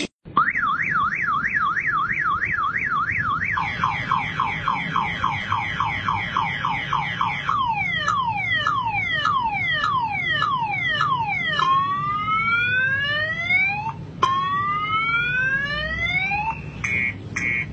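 Motorcycle alarm going off and cycling through its siren tones. It starts with a fast up-and-down warble, moves to rapid falling chirps, then slower falling sweeps and rising sweeps, and near the end switches to a quick pulsing beep.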